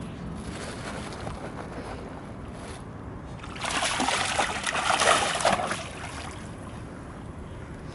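Two terriers wading and then running through shallow pond water, with a burst of splashing from about three and a half to six seconds in.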